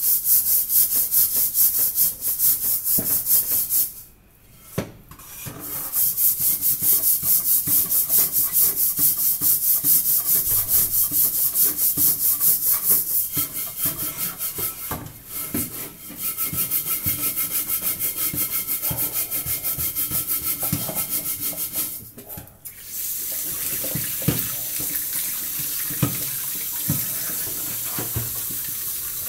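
A scourer scrubbing a blackened metal cooking pot with cleaning paste, in quick rhythmic strokes about four a second, with two brief pauses. About three-quarters of the way in the scrubbing stops and tap water runs steadily into the sink.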